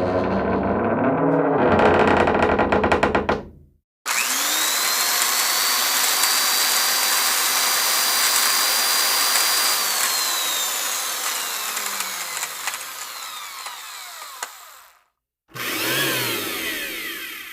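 Three stock sound effects one after another, parted by short silences. The longest is a whirring hiss with a whine that rises quickly, holds steady for about six seconds, then slides down as it fades, like a power tool spinning up and winding down.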